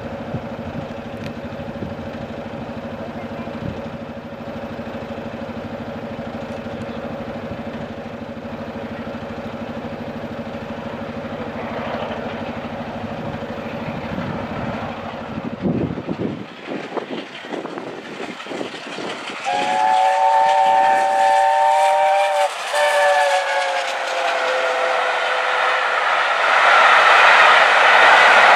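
LNER A4 Pacific 60009 Union of South Africa sounding its chime whistle, a chord of three notes, in two blasts: one of about three seconds and then a shorter one. After that the steam train runs past, its rushing noise growing louder toward the end. Before the whistle there is a steady low hum, which stops about 16 seconds in.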